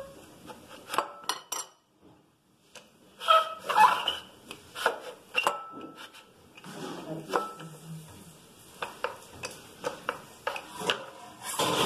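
Wooden rolling pin rolling out pizza dough on a plastic board, with irregular knocks and clatter of the pin and board between stretches of rubbing.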